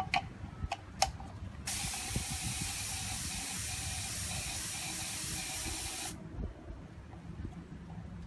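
A spray nozzle releasing a steady hiss of paint spray for about four and a half seconds, starting and stopping abruptly. It is preceded by a few sharp clicks.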